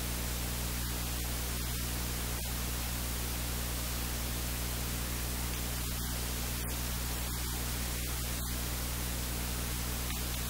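Steady static hiss with a low electrical hum underneath, and no other clear sound.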